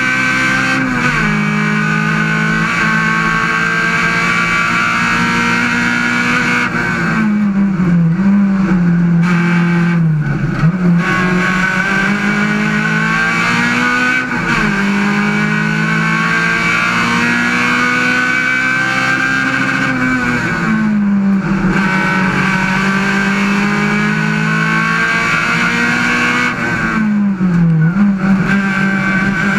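Ford Puma race car's engine heard from inside its stripped, roll-caged cabin, running hard at high revs, with the revs dropping sharply and climbing again several times.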